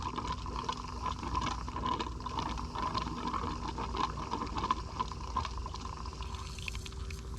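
Diesel fuel gurgling and trickling into the empty fuel filter bowl of a 6.0 PowerStroke diesel as the fuel pump primes with the key on, refilling a system that was run dry of fuel. A faint steady hum sits underneath.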